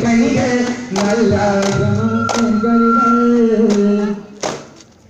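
Men singing a devotional song together over daff frame drums struck about every two-thirds of a second. The singing stops about four seconds in, leaving a few drum strokes.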